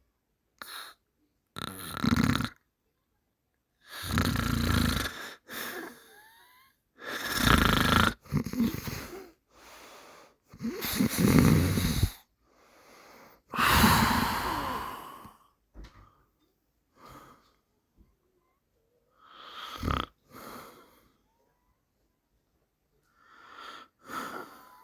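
A man snoring: irregular, breath-long snores, the loudest with a low buzz, separated by silent gaps. They grow softer in the second half.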